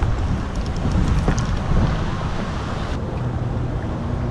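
Wind buffeting the microphone: a dense, rumbling noise with a few faint clicks. About three seconds in it settles into a steadier low hum.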